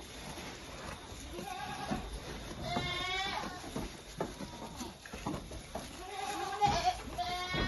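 Goats bleating: several wavering calls, the loudest about three seconds in and another pair near the end.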